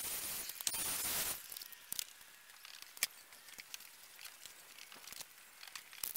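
Handheld electric paint sprayer hissing steadily as it sprays exterior paint onto wood siding, stopping about a second and a half in. After that come scattered light clicks and knocks as a metal stepladder is climbed down and moved.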